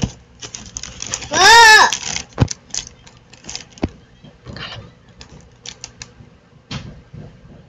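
Cosmetic boxes and plastic-wrapped packaging rustling and knocking as they are handled in a cardboard shipping box. About a second and a half in, one loud, short, pitched cry rises and falls in pitch.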